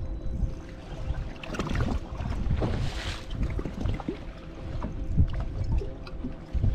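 Wind buffeting the microphone on an open bass boat, with water lapping and a faint steady hum underneath. A brief rush of noise comes about three seconds in.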